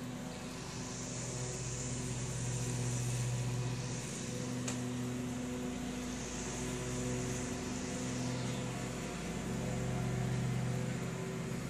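Gas lawn mower engine running steadily at a distance, its hum swelling and fading as the mower moves about the yard.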